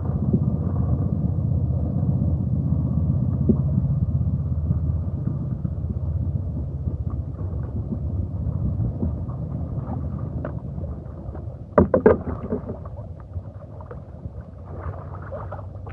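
Kayak on a river: a steady low rumble of water and paddling that eases off after about eight seconds, with a couple of sharp knocks about twelve seconds in.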